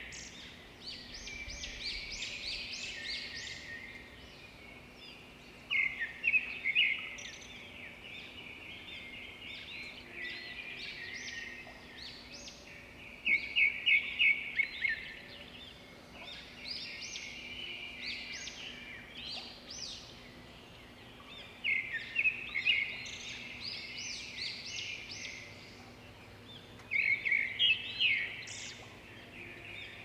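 Small songbirds chirping and twittering steadily, broken every several seconds by a short burst of rapid, louder chirps.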